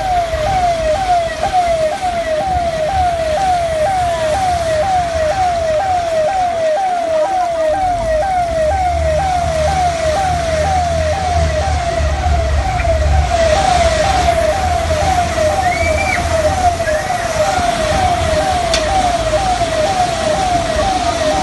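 Electronic siren tone sweeping downward about twice a second, steady and unbroken, over a low rumble of traffic and water.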